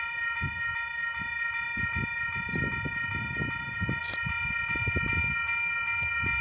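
Approaching freight train heard from a distance: a low, uneven rumble that thickens from about two seconds in. A steady high-pitched tone holds over it throughout.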